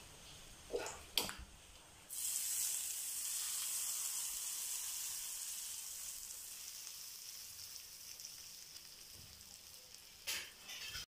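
Hot-oil tempering of mustard seeds, dried red chillies and curry leaves poured from a small pan into a pot of yogurt-based curry. It hits with a sudden loud sizzle about two seconds in that slowly dies away. Two short knocks come just before the pour, and another comes near the end.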